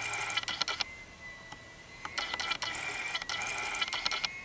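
Camera autofocus motor whirring and clicking in two spells of about a second each as the lens hunts for focus on an object held close in front of it.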